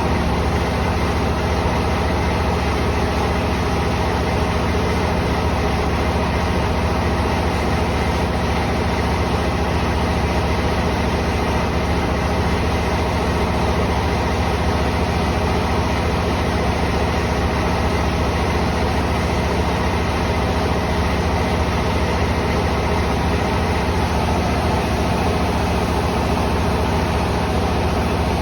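Rice mill machinery running steadily: a constant mechanical hum with a few steady tones over an even rushing noise.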